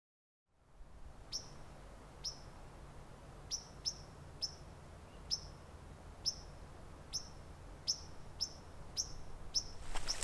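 A small bird giving short, high chip calls, about a dozen of them, each a quick downward sweep, spaced half a second to a second apart, starting about a second in over a faint low rumble.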